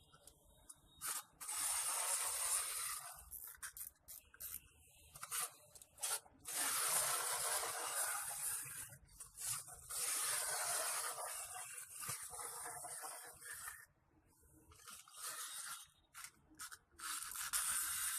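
Small wind-up toy's clockwork motor whirring in runs of two to three seconds, stopping and starting again several times, with scattered clicks between the runs.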